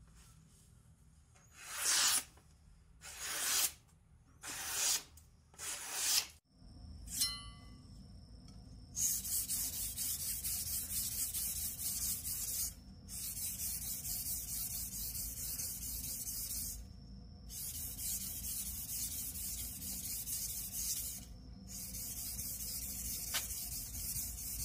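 A kitchen knife slicing through a sheet of newspaper in a test cut, about five short strokes. Then comes a steady high hiss of scraping or rubbing that breaks off briefly every few seconds.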